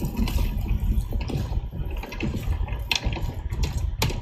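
Wet squelching and rustling of hands mixing chopped goat meat with chopped vegetables on a large tray, with a steady low rumble underneath and a couple of sharp clicks near the end.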